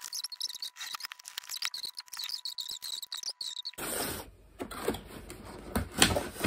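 Scissors slitting the packing tape along a cardboard box, a run of small scratchy clicks, then paper and cardboard rustling and crinkling from about four seconds in as the flap and packing slip are pulled up, with a few louder knocks near the end.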